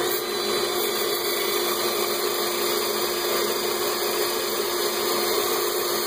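A cordless drill spinning a firm sanding pad against the outside of a wet-turned natural edge bowl as it turns on a running Central Machinery wood lathe: steady motor noise with a constant hum and the hiss of power sanding.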